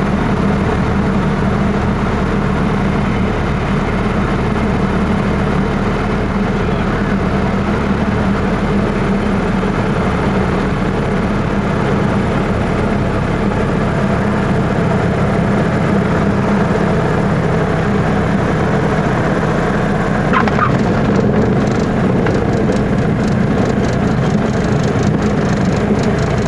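Small propeller airplane's engine and propeller running steadily, heard from inside the cockpit during the final approach and landing. About twenty seconds in there is a brief chirp as the wheels touch down, followed by a rapid run of clicks and rattles while rolling out on the runway.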